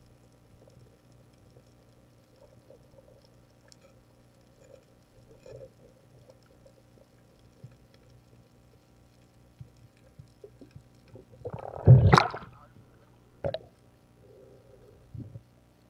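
Muffled underwater sound heard through a diver's camera housing: a faint steady hum with small gurgles, then a loud rush of water or bubbles lasting about a second near the end, followed by a single sharp knock.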